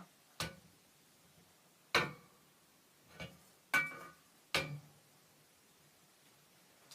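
Sharp clacks from a Nerf blaster being primed and fired at a target, five in about four seconds.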